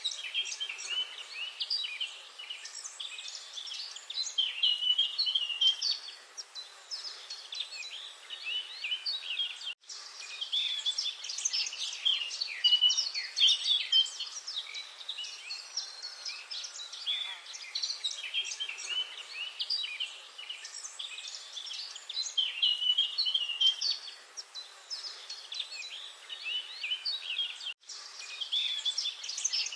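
A dense chorus of many small birds chirping and trilling at once: a steady mix of short high chirps. The sound cuts out for an instant twice, once about ten seconds in and once near the end.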